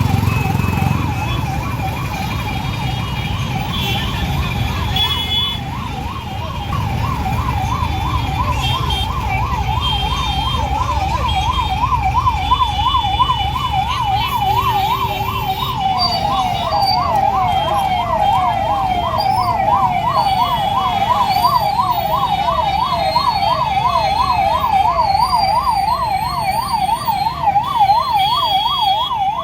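Ambulance siren in a fast up-and-down wail, about three sweeps a second, sounding continuously while the ambulance is stuck in a traffic jam. About halfway through a second siren overlaps it, slightly out of step. Traffic rumble runs underneath.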